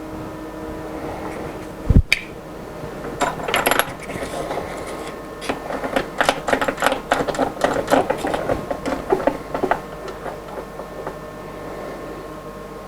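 Metal hold-down clamps and hand tools clicking and clattering in a quick irregular run as a workpiece is clamped to a CNC router table, over a steady electrical hum from the machine. One sharp knock comes about two seconds in.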